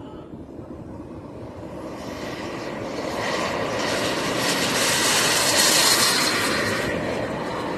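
Radio-controlled model jet's kerosene turbine at high power during its takeoff run: a rushing jet noise with a high steady whine, growing louder as the plane approaches and passes about five to six seconds in, then easing off a little as it moves away.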